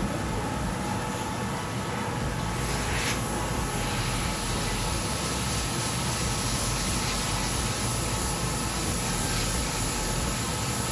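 Steady airy hiss with a low rumble beneath, unchanging throughout, with a brief brighter hiss about three seconds in.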